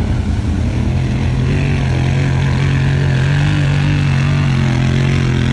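ATV engine running at high revs under hard throttle, its pitch rising a little partway through, with the hiss of slush and mud thrown up by spinning tyres.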